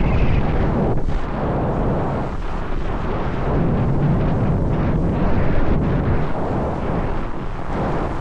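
Wind buffeting the microphone, mixed with the rush of a snowboard sliding over snow, loud and rough with uneven swells.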